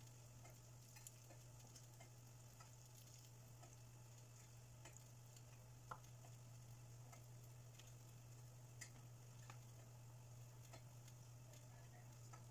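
Near silence: a steady low hum with faint, scattered ticks and taps from hands handling lumpia wrappers on a plate.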